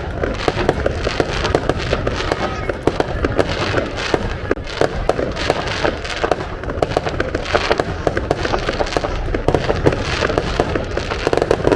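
Aerial fireworks going off in a dense, unbroken barrage of rapid bangs and crackles.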